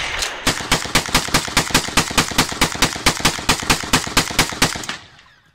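Rapid rifle fire, an even string of shots at about seven a second for some four seconds, fading out near the end. A single loud shot comes right at the start.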